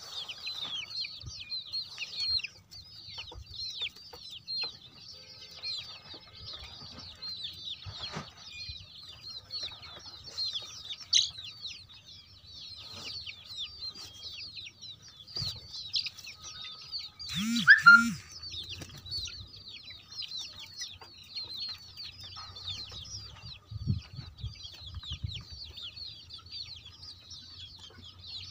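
A flock of young country chicks peeping continuously, many high, downward-slurred peeps overlapping. There is one short, louder burst about two-thirds of the way through.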